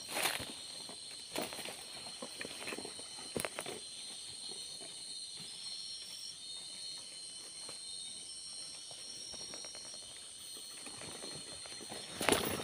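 Steady high-pitched chorus of night insects, several tones layered together, with occasional footsteps and rustling through undergrowth, a burst of them about a second before the end.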